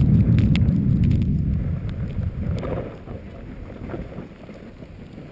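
Wind buffeting the microphone while riding a snowboard down the slope, a heavy low rumble that eases off after about two and a half seconds to a quieter hiss of the board sliding on snow.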